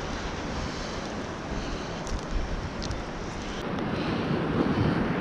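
Steady wind buffeting the microphone over the wash of sea surf, with a few faint clicks about two and three seconds in.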